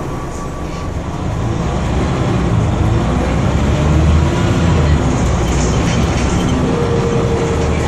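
Scania OmniDekka double-decker bus heard from the upper deck: the diesel engine and drivetrain running as the bus pulls away. The low engine sound grows louder over the first few seconds as it accelerates, then holds steady.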